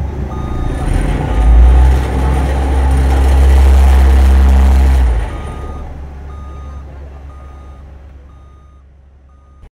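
Small vibratory road roller compacting loose gravel fill: its engine and drum give a strong low rumble for the first five seconds or so, while a reversing beeper sounds about twice a second. The sound then fades steadily away.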